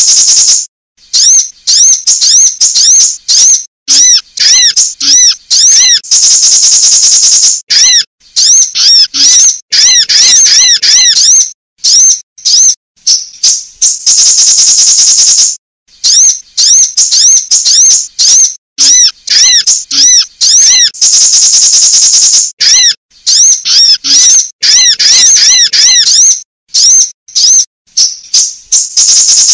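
Looped recording of sunbird calls, described as a female's calls used as a lure. A buzzy trill of about a second and a half comes every seven or eight seconds, with quick runs of sharp, high chirps between.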